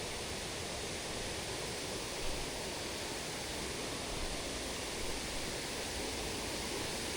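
Steady rush of water falling over the rocks of a waterfall, an even hiss with no change.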